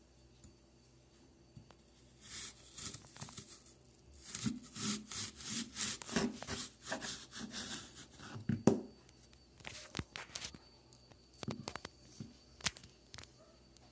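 Fine-toothed handsaw sawing through an apple in quick back-and-forth rasping strokes, about two a second, for several seconds. A few separate knocks follow near the end.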